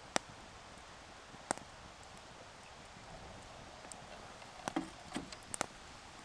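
Wood campfire crackling: a few sharp pops and snaps, two close together near the end, over a low steady hiss.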